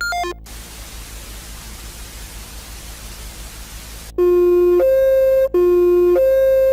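Electronic emergency alert tone: a quick falling run of beeps, then static hiss for about four seconds, then a loud, buzzy two-tone alarm alternating low and high pitch, each pair about a second and a half long with a brief break between pairs.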